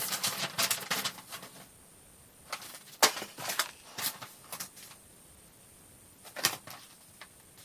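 Handling noise from hands at work: a quick run of clicks and rustles in the first second and a half, then scattered single clicks and light knocks. The loudest comes about three seconds in and another about six and a half seconds in.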